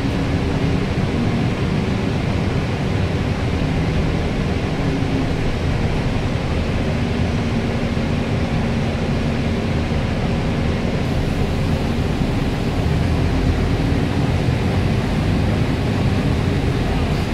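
Double-decker bus under way, heard from the upper deck: a steady drone of engine and road noise with a faint low hum.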